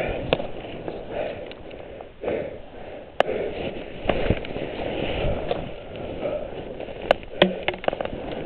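A skier breathing hard close to the helmet camera, each breath rising and falling about once a second, while skis and clothing push through birch branches in snow. A few sharp snaps and clicks of twigs come through, twice close together near the end.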